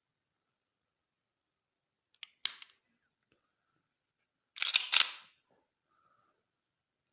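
Sharp mechanical clacks of a pistol being handled: a short pair about two seconds in, then a louder quick run of three or four clacks about five seconds in.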